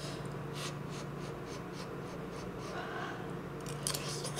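Quiet eating sounds: a few soft clicks and scrapes of a metal spoon with mouth noises as a spoonful is eaten, over a faint steady hum.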